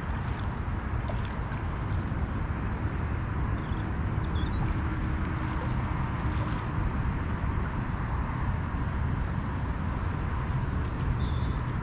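Outdoor ambience: a steady low rumbling noise with a few short high bird chirps, a couple about a third of the way in and one near the end.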